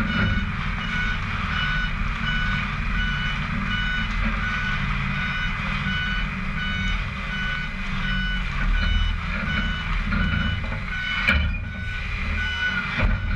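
Mitsubishi Fuso Super Great tractor-trailer reversing slowly: its reversing alarm beeps in an even repeating pattern over the low rumble of the diesel engine. A brief sharp noise stands out about eleven seconds in.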